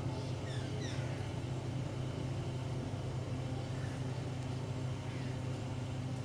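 A steady low mechanical hum, like a vehicle engine running evenly, with a few short high chirps in the first second.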